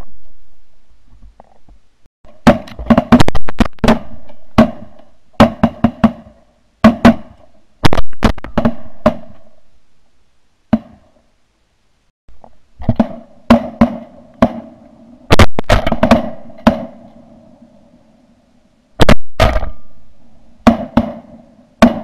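Shotgun shots fired in quick strings of two to four across several hunting clips, each blast followed by a short ringing decay.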